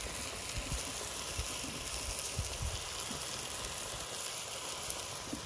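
Onion and tomato masala sizzling steadily in a pan over a wood fire, with a few soft knocks.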